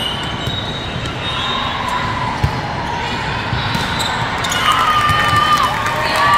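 Echoing din of a large volleyball hall with many games going on, with a sharp volleyball hit about two and a half seconds in. Near the end, high-pitched shouts from the girls' team break out as the players cheer.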